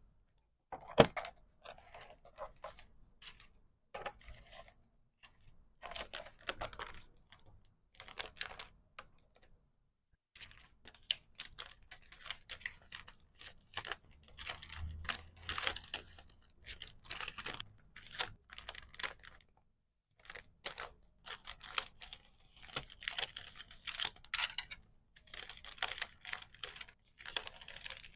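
Hands packing small items: irregular clicks and taps of small hard pieces set down or snapped, mixed with short crinkles and rustles of plastic wrap and paper, with a sharp click about a second in and brief pauses about ten and twenty seconds in.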